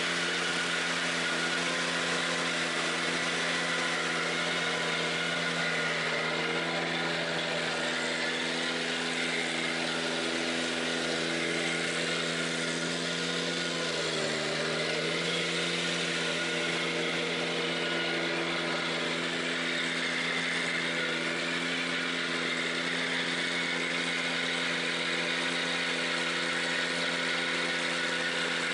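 Ventrac 4520Z compact tractor's engine running steadily with its KC180 stump grinder attachment, the pitch dipping briefly about halfway through.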